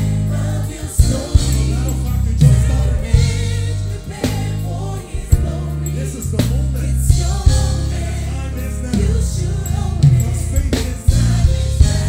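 Live gospel band playing: loud bass guitar notes and a drum kit with cymbal crashes, with a choir singing over them.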